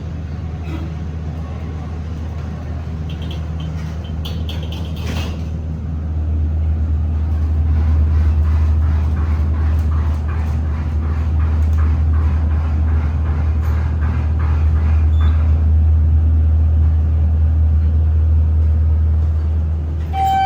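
Hydraulic pump unit of a 1975 Otis hydraulic elevator running as the car travels, a steady low hum that grows louder about six seconds in, with a few light clicks before it. The elevator is described as sounding tired and worn out from heavy use.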